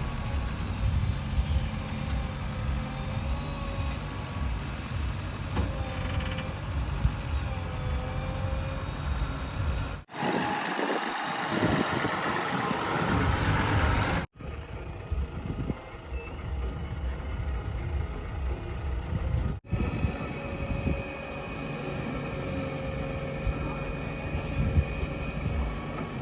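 Diesel engine of a JCB 3DX backhoe loader running under load while digging and loading soil, with a wavering higher tone over the engine. The sound is heard in several cut-together clips. In one stretch, about ten seconds in, the engine rumble drops away and a hiss takes over for a few seconds.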